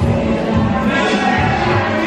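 Loud background music with a bass beat.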